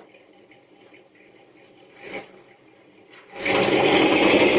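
Faint background hiss, then about three and a half seconds in, sudden loud rapid pounding and rattling on a front door that keeps going, picked up by a doorbell camera's microphone.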